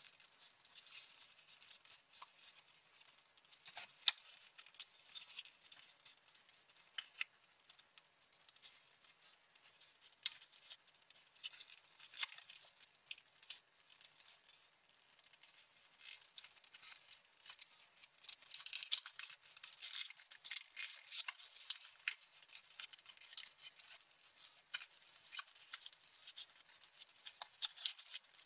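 Origami paper being folded and handled: faint rustling and crinkling, with many small sharp crackles and taps as creases are pressed and paper units are pushed together, busiest about two-thirds of the way through.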